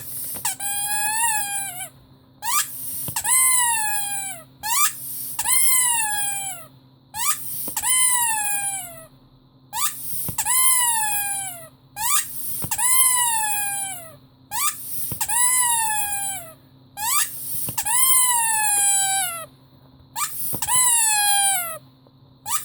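A squeaky rubber toy squeezed over and over: about ten long squeaks, one every two seconds or so, each sliding down in pitch.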